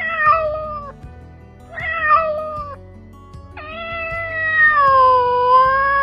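Kitten meowing three times: two short meows, then a long drawn-out one that sags slightly in pitch.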